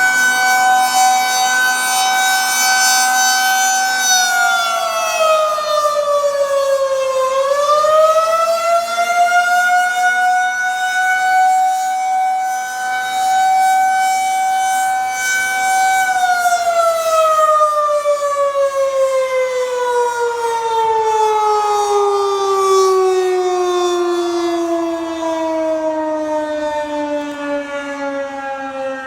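Federal Signal 2001-SRNB rotating electromechanical outdoor warning siren sounding one loud steady tone. About four seconds in the pitch sags, and it climbs back by about ten seconds. From about sixteen seconds the pitch falls in a long steady glide and the sound fades a little as the siren winds down.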